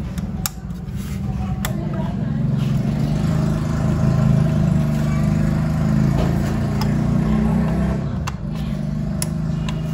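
A low, steady engine rumble that swells through the middle and eases near the end, with a few sharp clicks as a plug and a set-top box's metal case are handled.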